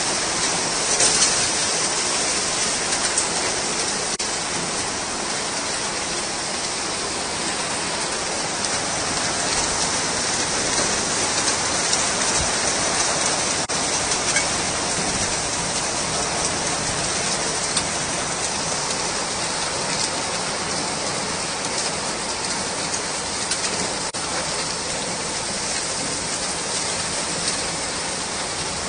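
Heavy rain pouring down in a steady, dense hiss onto a water-covered street and pavement.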